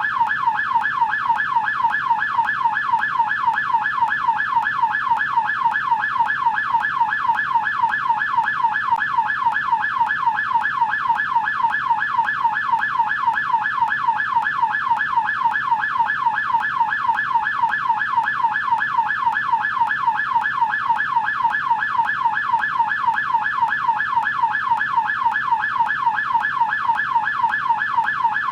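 American police car siren in yelp mode: a fast, steady up-and-down wail, about three to four sweeps a second, repeating without a break.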